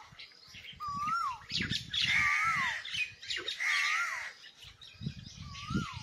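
Birds calling: one bird repeats a clear whistled note that rises and then falls, about once every second and a quarter. Harsher squawking calls from other birds come in twice, with intermittent low rumbles underneath.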